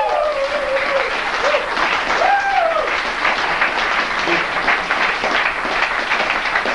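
Small audience applauding steadily, with a short call from someone in the crowd near the start and again about two and a half seconds in.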